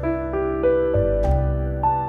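Background music: soft piano melody over sustained bass notes.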